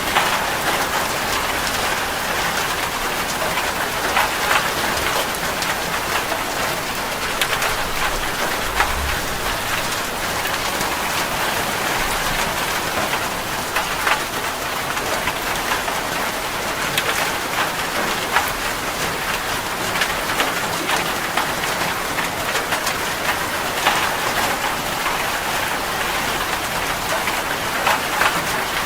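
Steady rain, with many separate drops ticking on a surface throughout.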